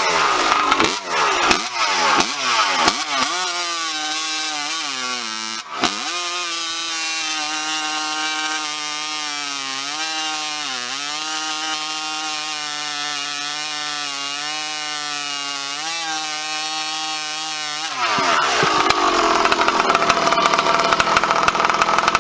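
Farmertec G372 chainsaw (a Husqvarna 372XP clone) fitted with a tuned expansion-chamber pipe with an external stinger. It is blipped up and down several times, then held at full throttle through a long cut, the pitch steady with small dips as it loads. About eighteen seconds in it comes out of the cut and the sound turns louder and harsher.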